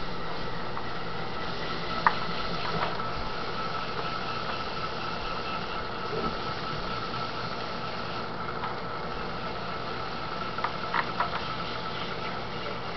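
Electric potter's wheel motor running steadily with a constant whine and hum while wet clay turns on it. A few short ticks sound about two seconds in and again near the end.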